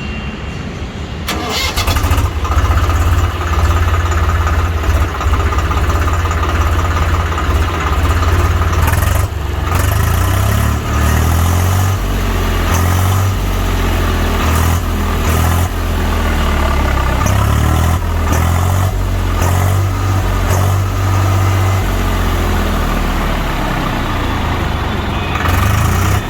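Swaraj 733 FE tractor's three-cylinder diesel engine cranked by the starter and catching about a second or two in, then running steadily. From about ten seconds in its speed rises and falls as the throttle is worked.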